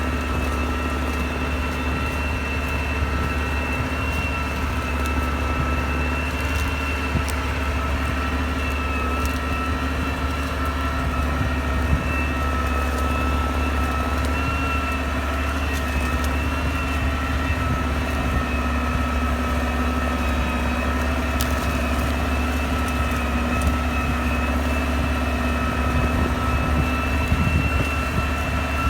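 Hürlimann 468 tractor engine running steadily under load while ploughing, with a steady high whine over the engine note.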